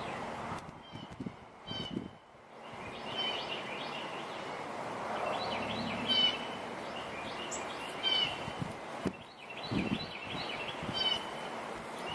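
Wind blowing, swelling in the middle, with birds chirping in short high calls repeated every second or two.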